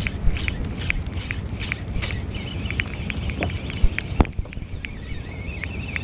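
Aboard a small fishing boat at sea: a steady low rumble, with regular light ticks about two or three a second that stop about two seconds in, then faint high wavering chirps and a few scattered ticks.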